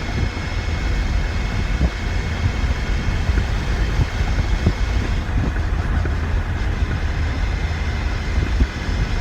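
Steady rumble of tyre, wind and drivetrain noise inside a Ford Ranger pickup's cab at highway speed, with the rear window out, and a few light knocks from the road.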